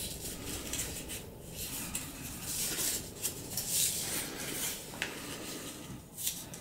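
A sheet of paper being folded by hand: rustling, and fingers rubbing along the creases, loudest a few seconds in.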